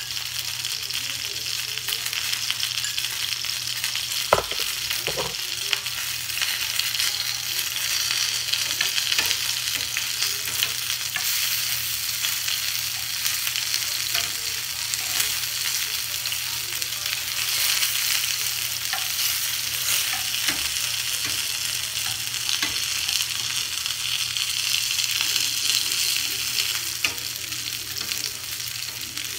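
Pork spring rolls (lumpia) sizzling as they shallow-fry in oil in a stainless steel skillet, a steady high hiss. Metal tongs click now and then as the rolls are turned, with two sharp knocks about four and five seconds in.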